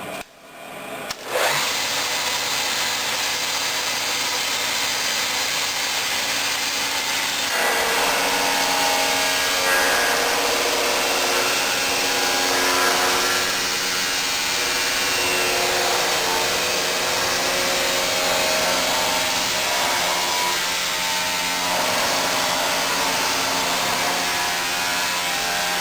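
NIKOS 1200 (SFR-1200) pipe cutting and bevelling machine's cutting disc switched on and running, with a steady rasping machining noise. The noise grows fuller and lower about seven and a half seconds in.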